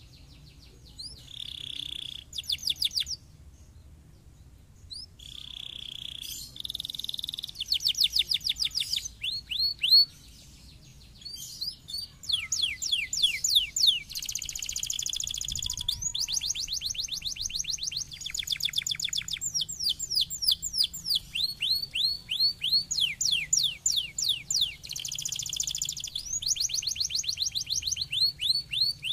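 Domestic canary singing: fast trills of rapidly repeated down-sweeping notes in long rolling phrases, with short breaks between phrases in the first third.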